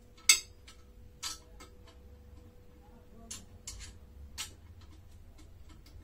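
Sharp metal clicks and knocks at irregular intervals from horn parts, brackets and hand tools being handled during car-horn assembly, the loudest just after the start. A faint steady hum runs underneath.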